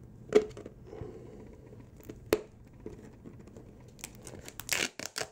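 A thin-walled 3D-printed nylon 618 pot is pulled and twisted with pliers, giving a few sharp cracks and crinkling as its printed layers strain and tear. A single crack comes about a third of a second in and another just after two seconds, then a quick run of crackles near the end.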